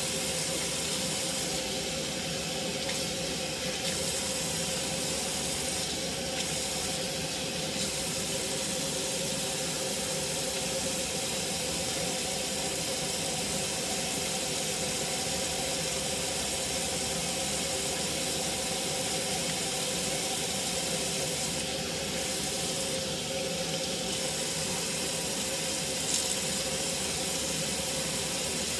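Kitchen faucet running a steady stream of water into a stainless steel sink.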